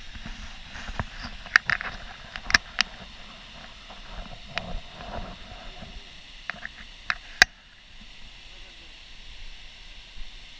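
Steady rush of a waterfall pouring into a river pool, with a scattering of sharp clicks and knocks on top, the loudest about seven seconds in.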